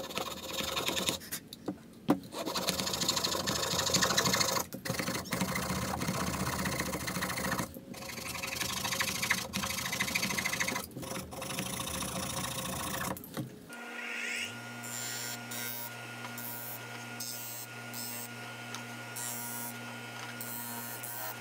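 A wooden box rubbed back and forth by hand across a sheet of sandpaper on a bench: a coarse, uneven scraping broken by brief pauses. About fourteen seconds in it gives way to a benchtop disc sander's electric motor running with a steady hum.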